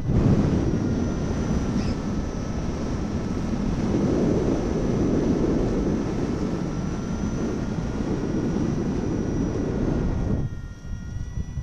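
Wind buffeting the microphone during a paraglider launch or flight: a loud, steady low rumble that drops away about ten and a half seconds in, with faint steady high tones above it.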